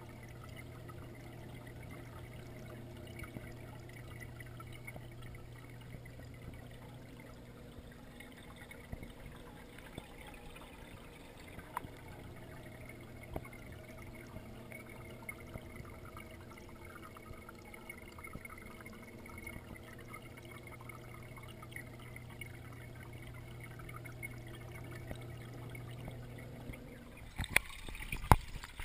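Aquarium water circulating, heard underwater: a faint trickle of moving water over a steady low hum. Near the end the hum stops, replaced by several sharp knocks and a rush of water as the camera is handled.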